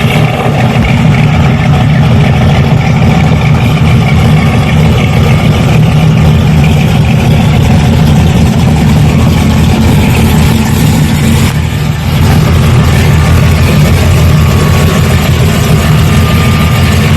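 Car engine running loud and steady, with a brief break about twelve seconds in.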